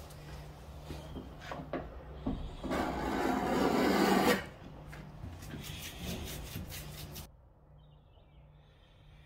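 Rubbing and scraping of a hand-held applicator on a car door's scratched paint: one harsh rub lasting over a second, about three seconds in, with lighter rustles and taps around it.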